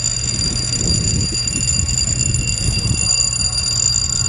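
Lock warning siren sounding as the lock gate opens: a steady high tone held at one unchanging pitch, over a low rumble.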